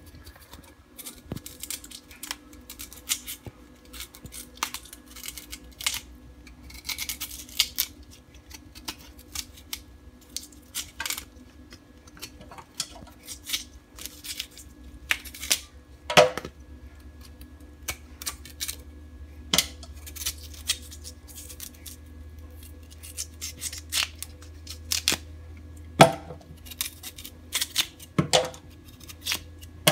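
Knife scraping and cutting the tough brown skin off a cassava root in short, irregular strokes, with a few sharper clicks, about 16 seconds in and twice near the end. A steady low hum runs underneath.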